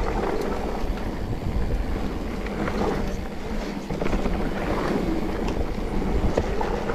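Wind rushing over a chest-mounted action camera's microphone as a mountain bike rolls down a dirt trail, with a steady low rumble and scattered small clicks and rattles.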